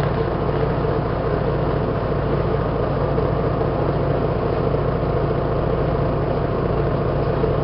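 Diesel engine of a 1988 MAN SL 202 city bus running steadily at an even pitch, heard from inside the bus.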